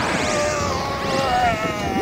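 Electronic film sound effect: several tones sliding steadily down in pitch, with a wavering tone beneath them.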